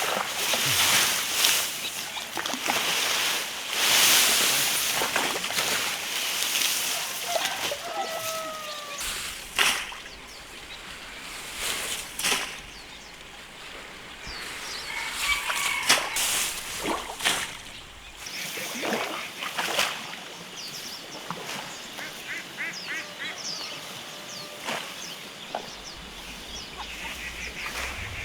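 Ducks calling now and then, with scattered sharp knocks and a rushing noise over the first several seconds.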